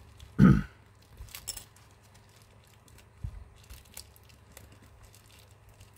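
Plastic opening picks prying the shattered screen off a Huawei P20 lite: faint scattered clicks and crackles from the cracked glass and adhesive, after one short, loud low sound about half a second in.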